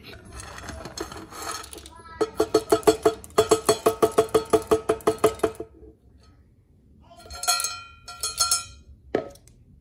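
Dry dog kibble rattling out of a stainless steel bowl into a glass jar, then a run of quick even clinks, about seven a second, of the metal bowl knocking against the jar, each one ringing. Near the end a few more ringing clinks and a single click as the last kibbles settle in the bowl.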